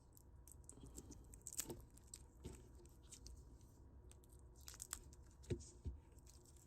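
Faint scattered clicks and rustles of a charging cable and its connectors being handled, with a few louder clicks about two and a half seconds in and again near the end.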